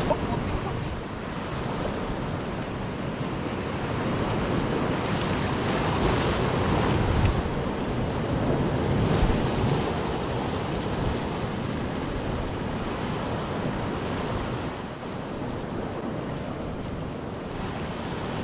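Sea waves washing and breaking against shoreline rocks in a continuous surge that swells louder about midway, with wind buffeting the microphone.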